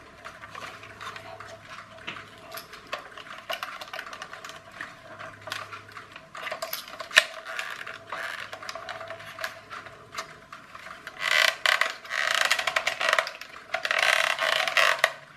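Small clicks and knocks of hard plastic as a clockwork toy car's plastic body is handled and worked at with a small screwdriver. There is one sharper click about seven seconds in, then denser scraping and rattling over the last few seconds.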